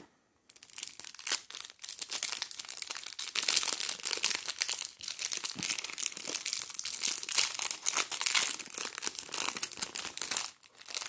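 Clear cellophane wrap being torn open and peeled off a stack of trading cards: a dense run of plastic crinkling and crackling that starts about half a second in and stops near the end.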